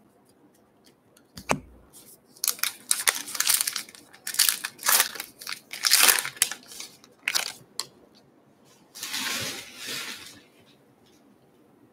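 A trading card pack's foil wrapper being torn open and crinkled by hand, a string of irregular crackling rustles. A softer, smoother rustle follows about nine seconds in.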